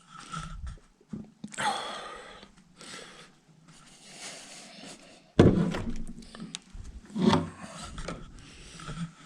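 Handling and movement noise as someone moves through a derelict building: scuffs and rustling, with a sharp thud about five and a half seconds in, the loudest sound, and a second knock a couple of seconds later.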